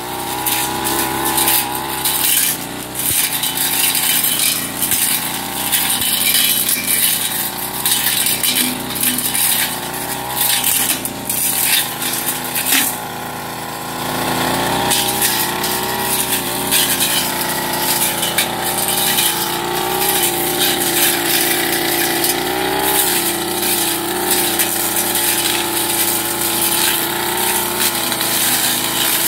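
Backpack two-stroke brush cutter running under load while cutting weeds and brush. The engine pitch rises and falls with the throttle, and stems and debris crackle and tick against the cutting head. About halfway through, the engine eases off for a moment, then picks back up.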